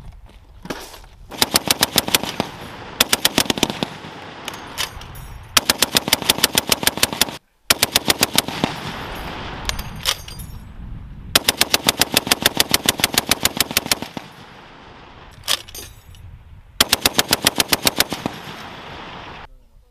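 M2 .50-caliber heavy machine gun on a tripod firing a series of short bursts, about five of them, each one to two seconds of rapid, evenly spaced shots. The reports echo in the gaps between bursts.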